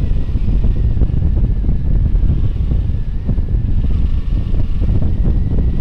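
Wind buffeting the microphone of a moving sport motorcycle, with the engine running underneath and a faint steady whine.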